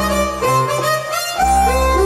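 Alesis Andromeda A6 analog polyphonic synthesizer played with both hands: sustained chords over a low bass note, changing about every second, with the new notes sliding up into pitch.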